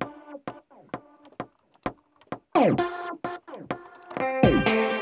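Electronic music being assembled in music-production software, played back in short stop-start fragments: brief synth notes and repeated downward-sliding sweeps with gaps between them. About four seconds in, a fuller layered synth part sets in and holds.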